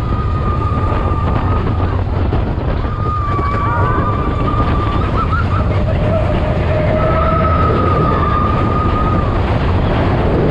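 Big Thunder Mountain Railroad mine-train roller coaster running along its track with a loud, steady rumble. Several long, high, slightly wavering tones rise over the rumble, each held for a second or two.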